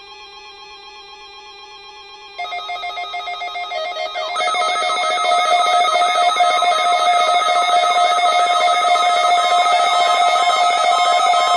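Electronic ringing alert tones over a steady layered drone, stepping up in level about two seconds in; from about four seconds in a loud, rapidly repeating warble rings over several pitches at once.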